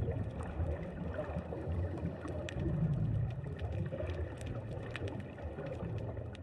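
Underwater ambience picked up by a diving camera: a low, muffled churning rumble of water with scattered sharp clicks, beginning to fade out near the end.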